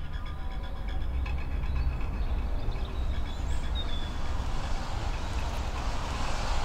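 Steady low rumble of distant city traffic, with the last of a music cue fading out in the first couple of seconds.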